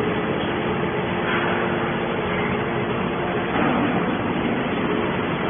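Hydraulic can baler running: a steady machine hum with a faint held tone under a noisy mechanical rumble.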